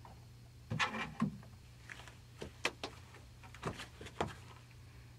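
Faint scattered knocks and clicks from someone moving about and handling things in a small recording booth, over a low steady hum.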